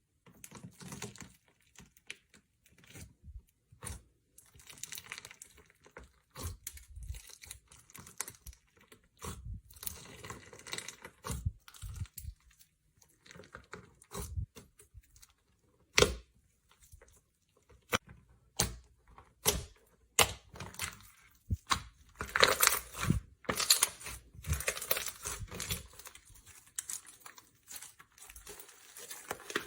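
Slime being squeezed, pressed and stretched by hand: a run of sticky clicks, pops and crackles, with one sharp pop about halfway and denser crackling later on.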